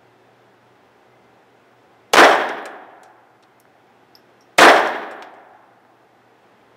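Two shots from a Sig Sauer Mosquito .22 LR semi-automatic pistol, about two and a half seconds apart, each with a decaying echo. A third shot comes right at the end.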